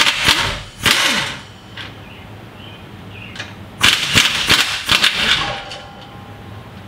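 Impact gun hammering out the rusty 14 mm bolts that hold the rear sway bar's bushing bracket, in two rattling bursts: one that stops about a second in and a second, longer one about four seconds in.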